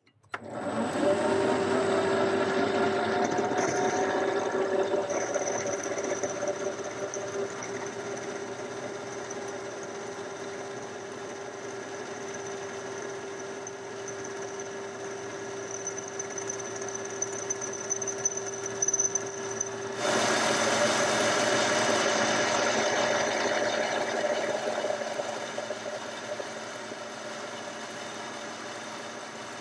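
Boxford lathe running under power, turning a steel bar, with a steady tone over the machine noise. About two-thirds of the way in the sound changes abruptly to a louder, brighter running noise that eases off toward the end.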